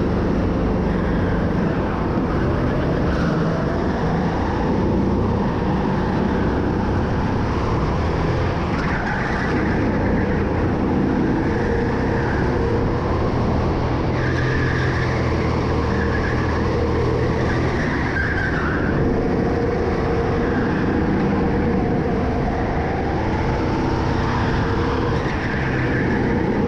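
Go-kart engine running hard at racing speed, a continuous drone with short bursts of tyre squeal here and there through corners.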